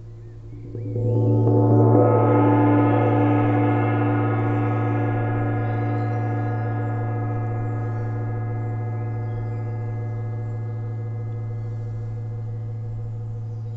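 Large hanging gong played with two padded mallets. It swells up from just under a second in, peaks about two seconds in, and then rings on with a dense spread of overtones, fading slowly.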